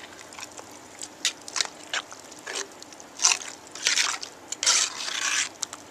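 Spoon stirring a thick mix of beans and browned hamburger in a Dutch oven: a string of irregular scrapes against the pot, the loudest about three to five seconds in.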